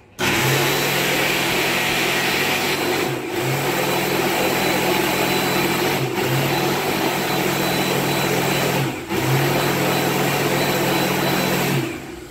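PHS Ultradry II automatic hand dryer switching on as a hand goes under its sensor and blowing steadily, a hiss of air over a low motor hum. The hum drops out for a moment three times, about every three seconds, and the dryer cuts off near the end.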